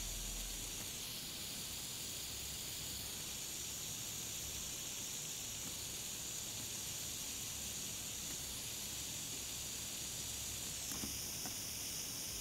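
Steady fizzing hiss from a homemade HHO water-electrolysis cell under voltage, as gas bubbles form between its stacked metal plates. A couple of faint ticks sound near the end.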